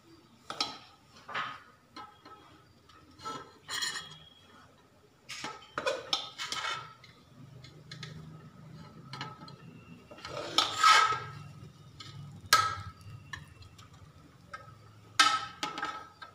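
Metal serving spoon scraping and clinking against a metal cooking pot as cooked rice is scooped out and served, in irregular strokes, the loudest about eleven seconds in.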